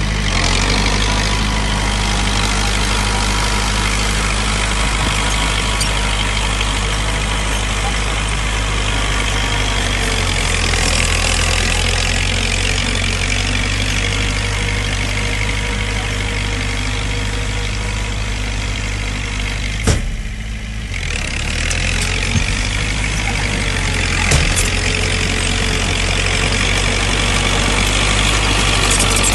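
Heavy diesel engines of a bulldozer and dump truck running steadily at low revs. A few sharp knocks come about two-thirds of the way through, the first with a brief drop in engine noise.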